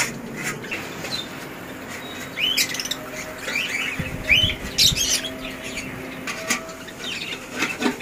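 Caged pet birds in a mixed aviary of budgerigars, Java sparrows, cockatiels and lovebirds calling, short high calls scattered through and busiest in the middle, over a faint steady hum.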